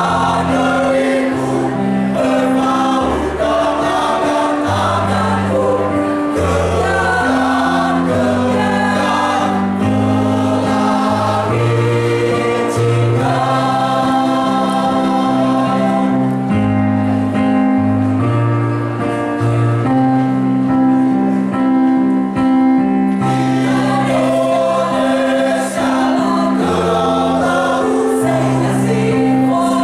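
A choir singing in harmony over an instrumental accompaniment with a steady bass line.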